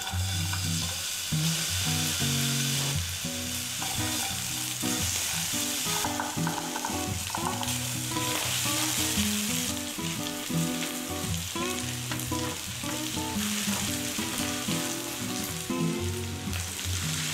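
Sliced onions frying in hot oil and butter in a wok, with a steady sizzle, stirred and pushed around the pan with a spatula.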